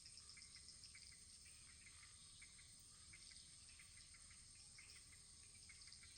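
Faint crackling of a wood fire, many small irregular pops over a steady soft hiss.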